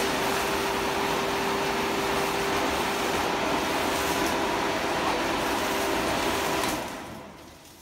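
Electric blower fan of an inflatable tube man (air dancer) running steadily with a constant hum. About seven seconds in it is switched off and winds down over about a second as the tube collapses.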